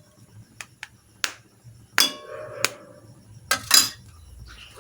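Kitchen dishes and containers being handled and set down: a series of sharp clinks and knocks, a few ringing briefly.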